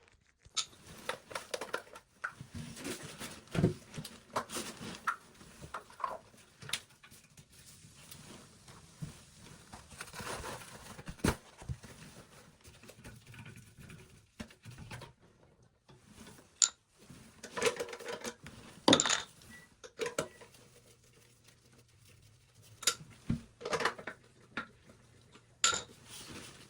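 Irregular knocks, clatters and clinks of hard objects being handled, with a faint steady low hum joining about two-thirds of the way through.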